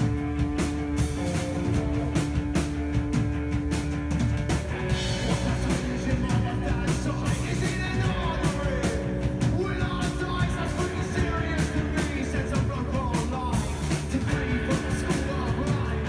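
Live rock band playing loud: electric guitars, bass and drum kit, with the lead singer's voice coming in about five seconds in.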